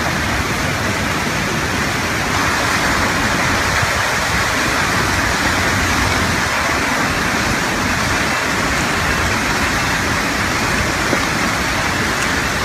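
Debris-laden flash flood rushing down a hillside: a loud, steady rushing of churning water.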